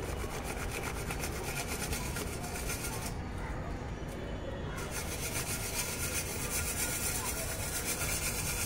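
Steady scratchy rustling and scraping of dry potting material (dried leaves, peels and wood ash) being worked by hand in a grow bag. The hiss thins out for a moment about three seconds in.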